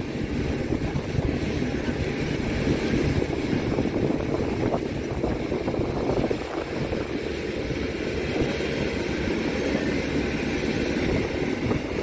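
Steady loud rumble of a running aircraft engine, with wind buffeting the microphone.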